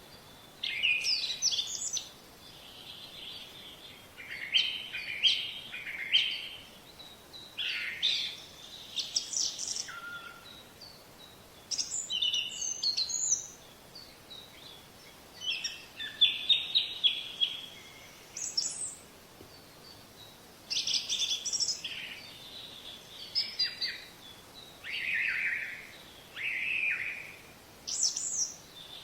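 Songbird singing, repeated short phrases of quick chirps and sweeping whistles, a new phrase about every two seconds.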